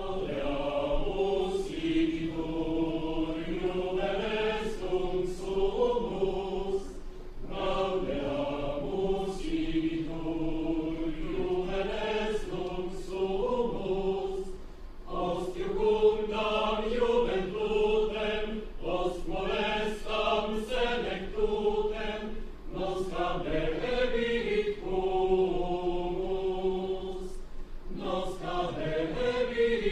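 A choir singing a slow song in long phrases, with short breaks between them.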